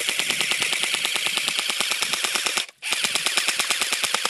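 Aftermath Kirenex Police M4 airsoft electric gun (AEG) firing full-auto on a low battery, a rapid, even stream of shots. It breaks off briefly about two and a half seconds in, then fires a second burst.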